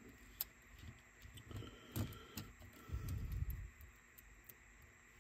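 Small clicks and taps as the tiny parts of a Sony Walkman WM-EX999 cassette player are handled and pressed back together, the sharpest click about two seconds in, followed by a brief low scuffing about a second later.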